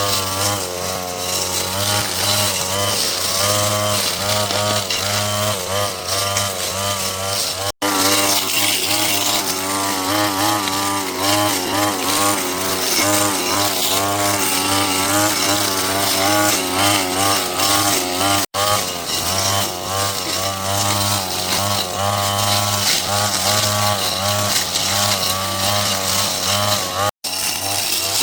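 Small two-stroke petrol power tool, such as a chainsaw or brush cutter, running continuously with its pitch wavering up and down as it cuts through growth. The sound drops out abruptly three times, for a split second each.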